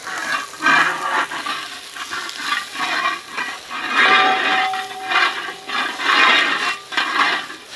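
Steel spatula stirring and scraping grated coconut and shallots around a wide metal uruli, a swishing scrape about once a second, as the coconut roasts in coconut oil for a curry masala.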